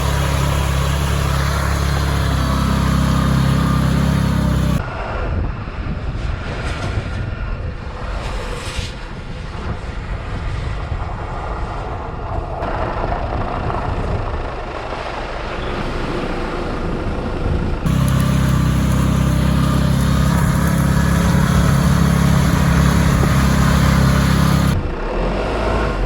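Car engine running and tyres working through snow and slush. The sound changes abruptly three times, from a loud steady engine hum with hiss to a rougher, quieter stretch and back.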